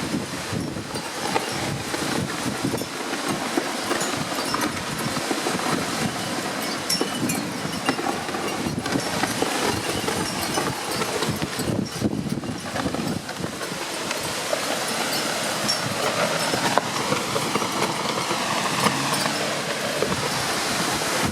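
Strong, steady wind blowing hard against the microphone, a constant rushing noise with many scattered clicks and knocks through it.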